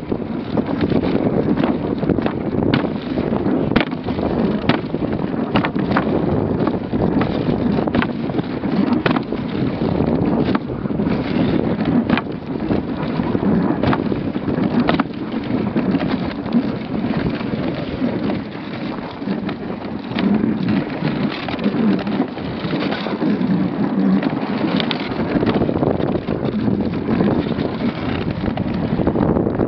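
A dogsled running over snow: the runners make a steady scraping hiss and the sled frame knocks and rattles over bumps, with wind buffeting the microphone.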